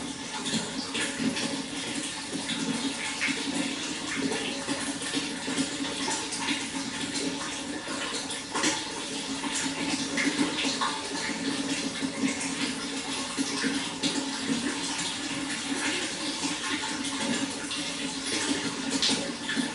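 Running water, a steady splashing flow with many small irregular splashes and drips.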